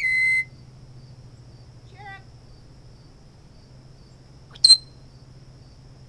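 African grey parrot giving a steady beep-like whistle for about half a second, a few faint chirps about two seconds in, then one loud, sharp whistle near the end.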